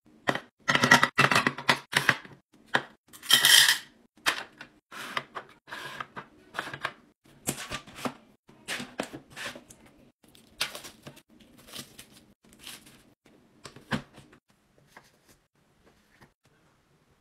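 Hands setting clear plastic organizer trays and spiral notebooks into a desk drawer: a run of clicks, taps and short rustles of plastic and paper, with one longer rustle a few seconds in. The handling thins out and stops in the last few seconds.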